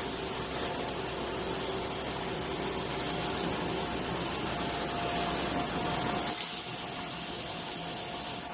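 CNC glass machine running: a steady hissing whir with two faint steady tones. About six seconds in there is a brief sharp hiss, after which the low rumble drops away.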